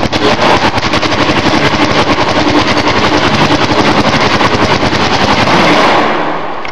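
Paintball marker firing a rapid, continuous string of shots, which stops near the end.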